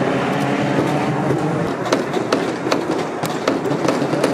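Hammers tapping small nails to fix metal clips onto plywood boards: irregular sharp taps, several a second at times, from more than one worker, over a steady background din.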